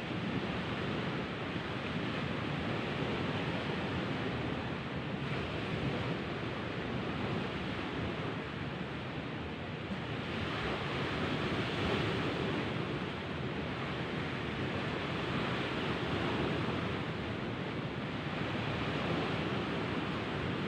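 Sea surf washing steadily against the shore, a continuous rushing that swells a little about halfway through and again near the end.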